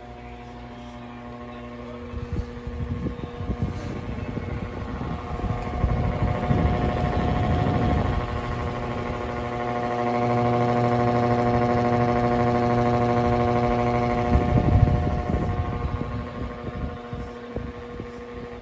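Lasko Wind Storm pedestal fan running on its maximum speed: a steady motor hum under a rush of air. The air grows loud and gusty from about two seconds in and eases off again after about fifteen seconds.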